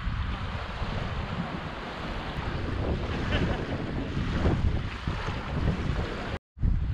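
Small waves washing onto a sandy shore, with wind rumbling on the microphone. The sound cuts out briefly near the end.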